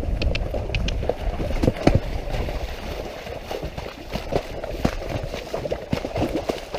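Hoofbeats of a ridden horse moving at pace along a muddy track, irregular thuds and splashes, with wind rumbling on the horse-mounted microphone for the first few seconds.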